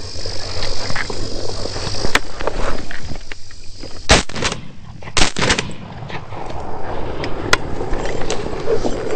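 Two shotgun shots about a second apart, near the middle, at doves in flight.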